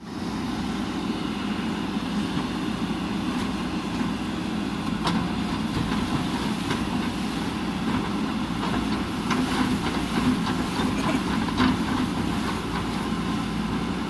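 JCB 3DX backhoe loader's diesel engine running steadily. Scattered light knocks and clicks sound over it from about five seconds in.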